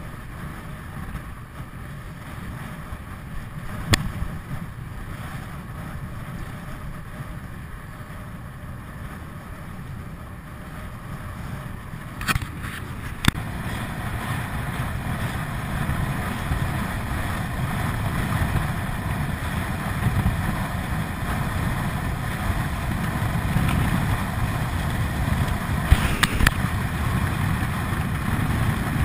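Wind buffeting the microphone of a chest-mounted action camera on a moving road bike, with a steady low rumble of tyres on asphalt. It grows louder from about halfway as the bike picks up speed on a downhill stretch, and a few sharp knocks come through, the bike jolting over bumps.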